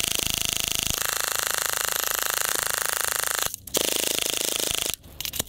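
A cheap electric airsoft M4 running on a small 4.8-volt battery, fired on full auto with the trigger held down: its motor and gearbox cycle in a fast, even rattle. There is a short break about three and a half seconds in and another near the end.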